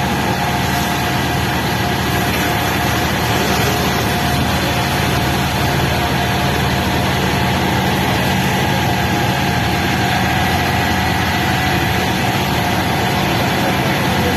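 An engine running steadily at a constant pitch, with a steady rushing hiss over it and no change from start to end of the stretch.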